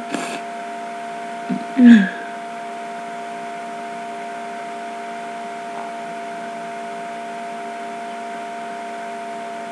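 A person in a hay-fever sneezing fit lets out one short, loud voiced sound about two seconds in, a catch of breath between sneezes. After it there is only a steady background hum with several fixed tones.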